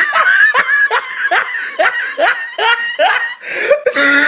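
A person laughing in a run of short, rising 'ha' pulses, about two or three a second, breaking into a longer held sound near the end.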